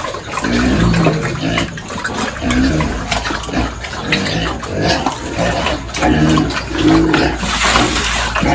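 Pigs grunting, short low grunts about once a second, over a wet, noisy background of feeding pigs.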